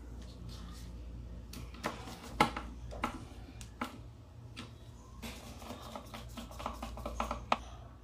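Irregular clicks, taps and scrapes of a wire being fitted and a screwdriver working the terminal screws of a motor contactor, with a sharp click about two and a half seconds in, over a low steady hum.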